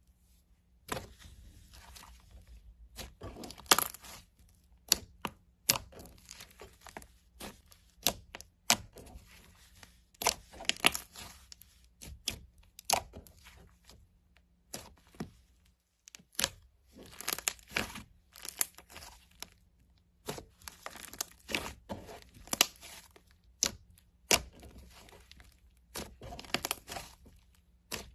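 Slime being squeezed and pulled apart by hand, giving irregular sharp crackling pops and short tearing sounds in clusters, with brief pauses between handfuls.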